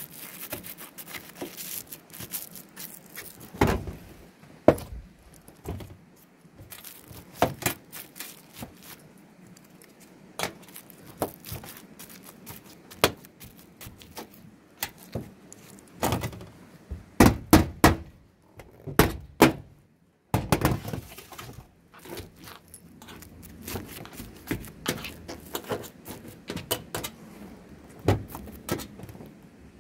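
Thin sheet-metal roof flashing being handled and worked around a chimney pipe with a small hand tool: scattered clinks, taps and scrapes of metal, with a run of louder knocks a little past halfway.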